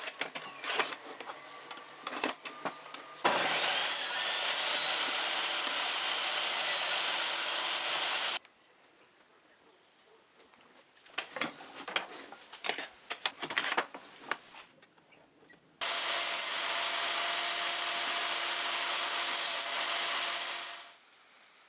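DeWalt jobsite table saw running and cutting pine blocks in two steady stretches, with a steady motor whine, the second winding down near the end. Between the cuts there are scattered knocks and clicks from handling the wood and cranking the saw's blade-adjustment wheel.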